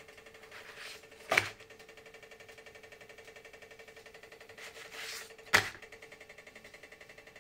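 A steady faint hum with a fast, even pulse, broken twice by a short rustle and a sharp click, about four seconds apart.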